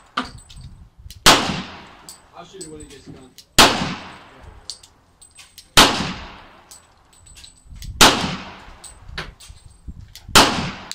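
A pistol fired five times at a slow, even pace about two seconds apart, each shot followed by a long echoing decay. Fainter sharp cracks and clicks sound in between.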